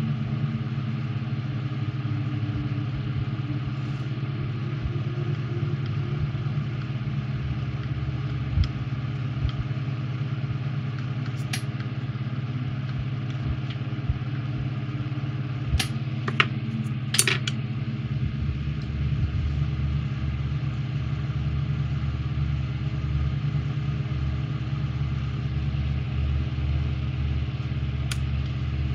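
A steady low machine hum runs throughout, deepening a little about two-thirds through. A few small sharp clicks and taps of tweezers and a bottle handled on a work desk sound over it.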